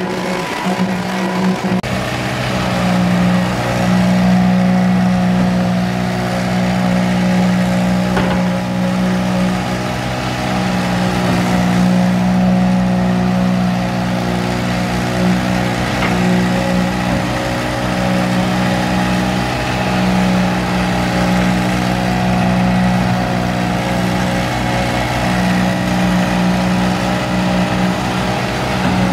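Concrete pump truck's diesel engine running steadily at a constant high speed while it pumps concrete into the wall forms.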